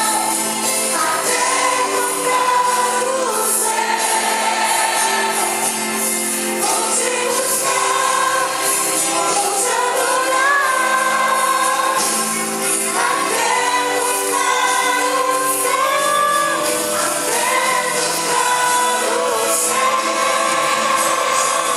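A Christian gospel song playing, with sung vocals over long held chords and a shimmering high cymbal-like wash.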